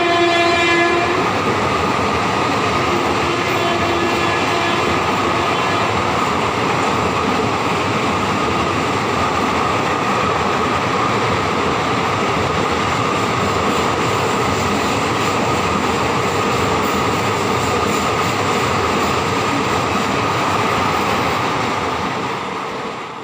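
Horn of an Indian Railways WAP-4 electric locomotive blaring and cutting off about a second in. The train then runs past at speed with a steady rushing noise and wheel rattle, fading out near the end.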